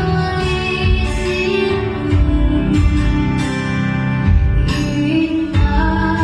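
A young girl singing a melody into a microphone over a recorded backing track with a steady beat and bass.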